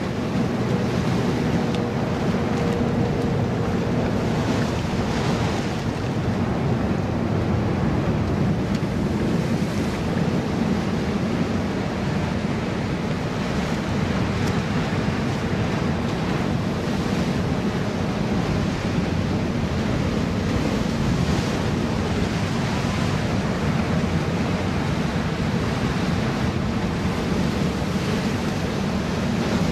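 Ocean surf washing in and breaking against a boulder rock wall in a steady rush that swells now and then, with wind buffeting the microphone.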